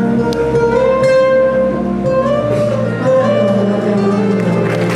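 Live band music led by a plucked acoustic guitar, with held notes and a slow melody line over it.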